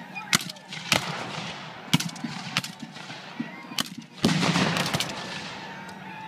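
Scattered black-powder musket shots, single cracks a second or so apart. About four seconds in comes a much louder blast, likely a cannon shot, that rolls on and dies away slowly over about a second.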